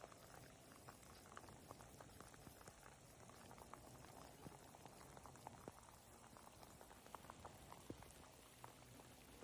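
Faint rain with a dense, irregular patter of small drop ticks.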